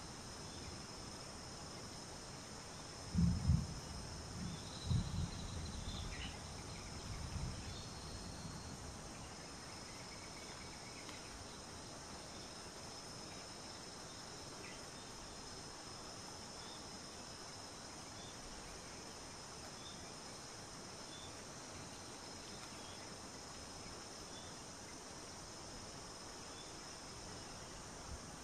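Steady high-pitched drone of crickets and other insects in bush, with a faint short chirp repeating about every second and a half in the middle stretch. A few loud, low thuds come between about three and eight seconds in.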